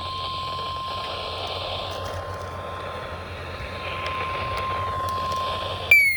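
Weather radio warning alert tone: a single steady tone near 1 kHz, sounding over radio hiss and stopping just before the end, signalling that a new warning is about to be broadcast. Right after it, a loud falling tone with overtones begins.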